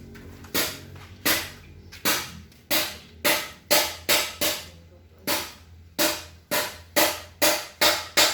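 Hand sanding of a BMW engine hood panel with sandpaper: repeated rasping strokes, about two a second at first and quickening to nearly three a second near the end.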